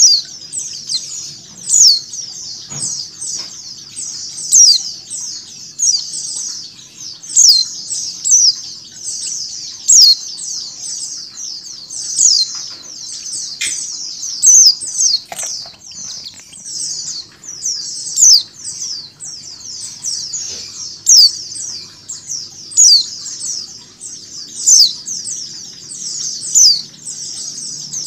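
Pleci (white-eyes) chirping: a flock's dense, unbroken high twittering, with a louder, falling chirp that repeats every second or two. The repeated chirp is the female's 'ngecal' call, mixed with flock chatter to coax other white-eyes into song.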